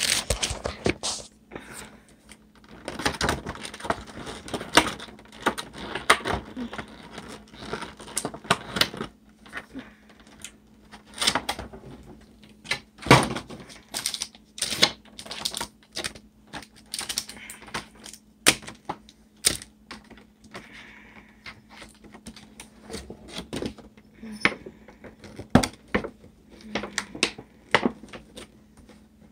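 Hands unpacking a trading card collection box: irregular clicks, taps and rustles of cardboard and clear plastic packaging being handled and set down on a desk.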